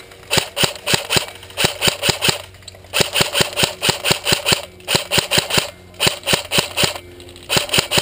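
Airsoft rifle firing rapid single shots, about four a second, in short strings of two to seven with brief pauses between, each shot a sharp crack.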